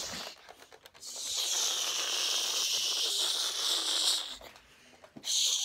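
Pretend flamethrower hissing: one long hiss of about three seconds, then a second, shorter one near the end.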